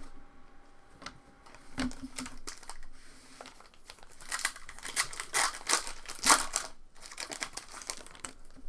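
Foil trading-card pack wrapper crinkling and tearing in a run of crackly bursts, thickest around the middle, as a pack is handled and torn open.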